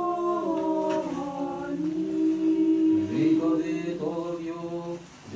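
Russian Orthodox church choir singing unaccompanied liturgical chant in held chords that shift step by step, the sung response to the priest's words of institution in the Divine Liturgy. The singing dips briefly near the end.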